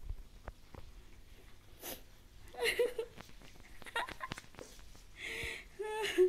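A few short, quiet vocal sounds, each under a second long, starting a little over two seconds in, after some soft clicks.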